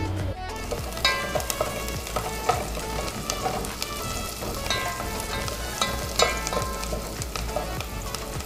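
Diced onions sizzling in hot oil in an aluminium pot while being stirred with a wooden spoon, with a steady frying hiss and scattered light taps and scrapes of the spoon against the pot.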